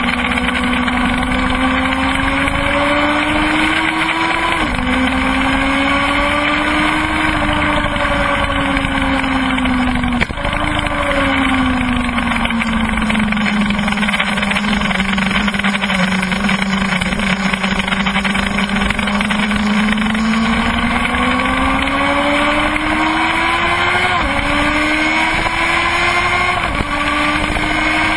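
Kawasaki ZX-12R's inline-four engine at speed, heard from on the bike over wind rush. Its note climbs through the gears with sudden drops at upshifts about 5 and 10 seconds in, sinks slowly for a long stretch as the bike slows and leans through a corner, then climbs again with two quick upshifts near the end.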